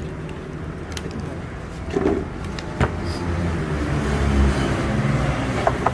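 Road traffic running past, with a low engine rumble that swells and fades in the middle, and a few sharp clicks and knocks.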